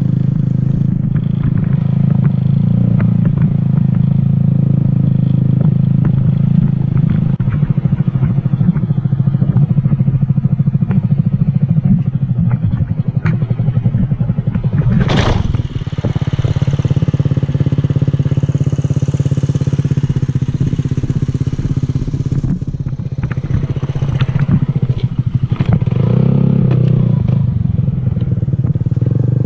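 Motorcycle engine running at a steady, held throttle while the bike is ridden in circles on its back wheel, with scattered light clicks and clatter. A short loud rush of noise comes about halfway through.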